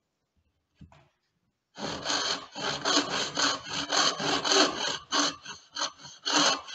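Wooden frame saw cutting by hand into the end grain of a board for a joint: rapid back-and-forth rasping strokes, about three a second, starting about two seconds in.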